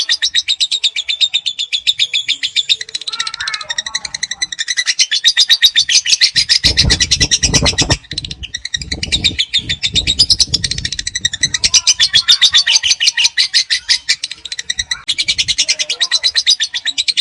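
Lovebird giving its long chattering song (ngekek panjang): shrill notes repeated about ten times a second in long unbroken runs, with short pauses between them. A low rumble sits under the song for a few seconds in the middle.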